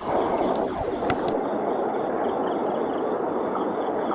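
Insects trilling in a steady high-pitched drone that drops to a lower pitch a little over a second in, over a loud, even hiss.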